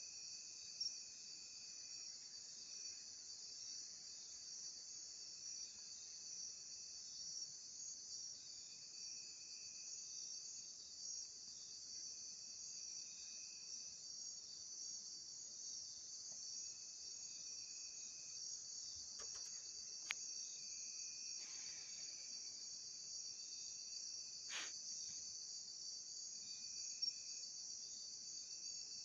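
Night insect chorus: a steady high-pitched trilling, with a second, lower-pitched insect calling on and off in stretches of a second or two. A few short clicks come in the second half, one sharper than the rest.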